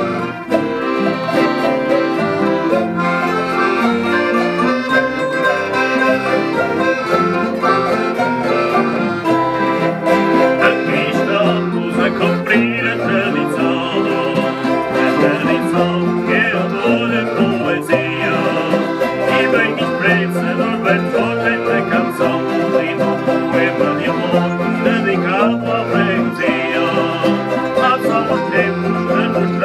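Portuguese folk ensemble of acoustic guitars, accordion and small mandolin-type plucked strings playing a lively strummed tune without a break.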